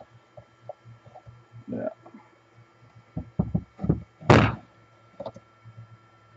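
Handling knocks from a Milwaukee portable band saw and its wheel cover on a wooden workbench: a quick run of light knocks about three seconds in, then one louder thunk about a second later, with a few softer taps around them.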